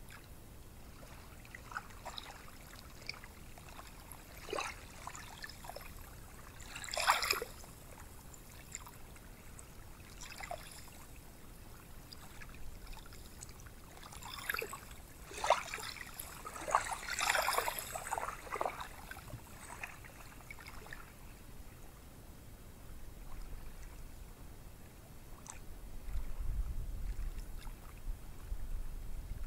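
Small sea waves washing onto a sandy beach: a faint steady wash with short hissing surges of surf at intervals, clustered a quarter of the way in and again just past the middle, and a low rumble near the end.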